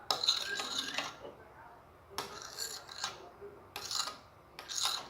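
Small spoon scraping against a container in several short strokes, the first and longest about a second, while spoonfuls of a slime ingredient are scooped and mixed.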